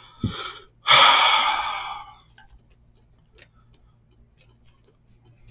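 A man's long, heavy sigh about a second in, a breathy exhale that fades away over about a second, voicing his exasperation. A few faint light clicks follow as the cards are handled.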